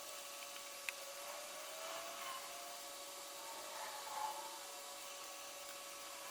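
Wood lathe running with a steady hum and hiss as a burl pepper-grinder blank is turned, with a sharp click about a second in.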